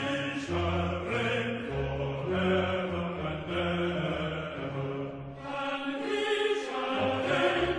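Slow background music of low, long-held chanted notes that move from one pitch to the next about once a second.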